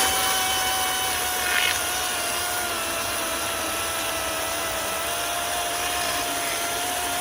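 DeWalt 20-volt battery chainsaw running through a log, its electric motor and chain giving a steady high whine that wavers only slightly under the load of the cut.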